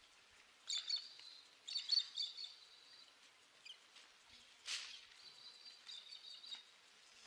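Faint high chirping of small birds, coming in three short spells, with one brief rustle a little past the middle.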